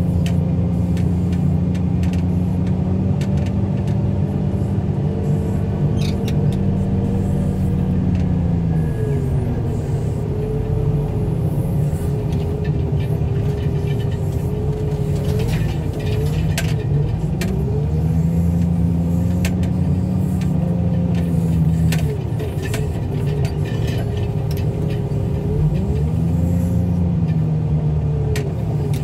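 Engine of a loader carrying a junk minivan on its hydraulic forks, running steadily, its pitch dropping and rising again several times as the machine moves and works, with scattered clanks and rattles of metal.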